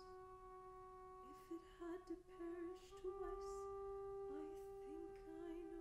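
Soprano voice and double bass in a quiet contemporary art song: one long, steady held note with short sliding notes just beneath it, and a few brief breathy, scratchy noises in the middle.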